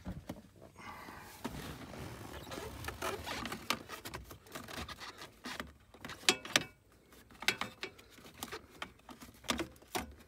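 Irregular plastic scraping and sharp clicks as a flathead screwdriver and fingers pry a flasher relay out of its socket behind the dashboard trim. The loudest clicks come about six seconds in and again near the end.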